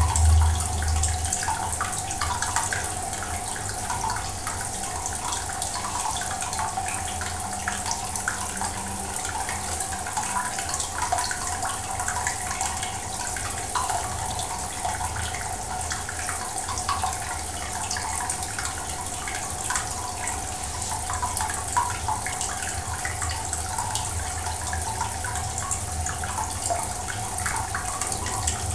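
Steady running, trickling water from an aquarium's circulation, dotted with many small drips and bubble ticks, over a faint steady hum.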